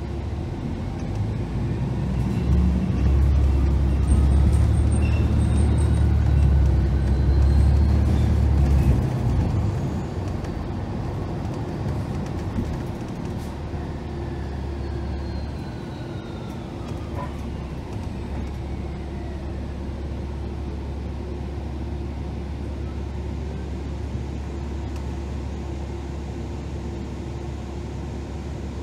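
Cabin sound of a 2018 New Flyer XDE60 diesel-electric hybrid articulated bus under way. Its Cummins L9 diesel rumbles heavier for several seconds and then settles to a steadier, lower run. A faint whine of the hybrid electric drive rises and falls in pitch above it.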